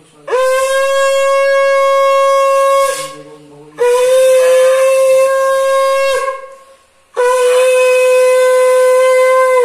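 Conch shell (shankha) blown three times, as is done at the start of a Hindu puja. Each blast is a long, steady note of about two and a half seconds that scoops up quickly at the start.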